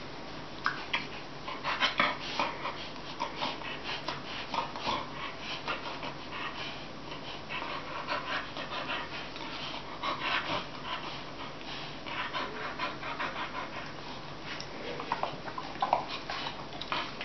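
Two English bull terriers gnawing and mouthing at each other's neck in play: a continuous run of irregular wet mouth and chewing sounds with breathing, and a few short whines near the end.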